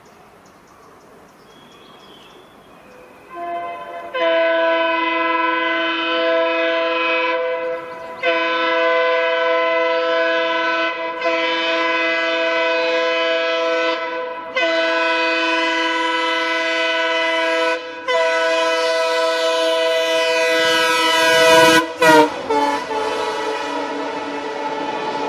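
Indian Railways locomotive horn, a chord of several tones, sounded in about five long blasts after a few quiet seconds. Near the end the blasts grow loudest and the chord slides down in pitch as the locomotive passes.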